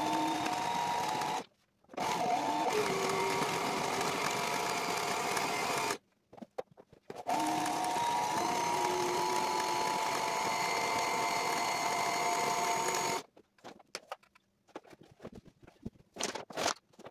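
Sailrite sewing machine stitching a seam between panels of sailcloth, running steadily in three runs with short stops about one and a half and six seconds in. About two-thirds of the way through it stops, leaving faint rustles and clicks of the cloth being handled.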